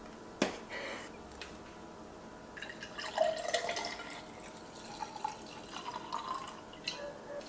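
A sharp click about half a second in, then white wine poured from a bottle into a tall glass, the pitch of the pour rising as the glass fills.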